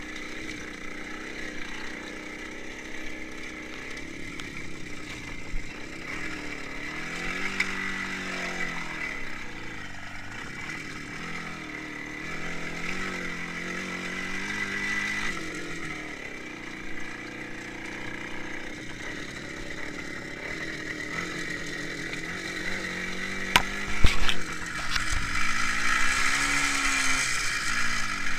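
IZh Jupiter 5 motorcycle's two-stroke twin-cylinder engine running under way, its pitch rising and falling again and again as the revs build and drop. Near the end there are a couple of sharp knocks.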